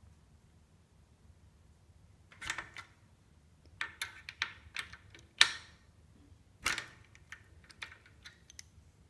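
Ratchet wrench with a hex bit socket clicking and clinking on a bicycle's axle mount bolts as they are loosened. Scattered sharp metal clicks come in small groups, the loudest about five seconds in, then lighter ticks near the end.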